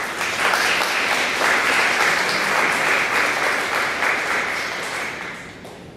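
Theatre audience applauding: dense clapping that breaks out all at once, holds steady, and dies away over the last second or so.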